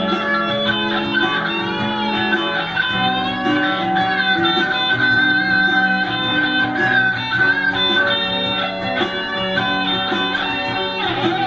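Music played on guitar, mostly plucked notes over a low sustained part, with a long wavering high note held through the middle.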